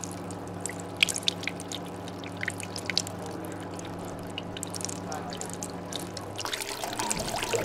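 Liquid dripping and trickling in quick irregular drops over a steady low hum. About six and a half seconds in, the hum stops and a fuller, steadier trickle takes over.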